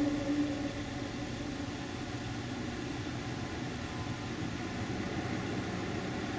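The tail of a low, droning 'metallic' sky sound: a steady tone fades out within the first second, leaving a steady hiss with faint steady tones underneath.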